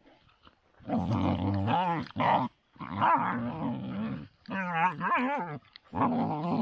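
Kangal shepherd puppies growling while play-fighting, in repeated wavering bouts about a second long with short pauses between.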